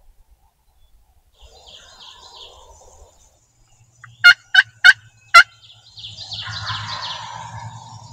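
Eastern wild turkeys calling: a rattling gobble about a second and a half in, four sharp loud calls in quick succession around the middle, and a longer, louder rattling gobble starting about six seconds in.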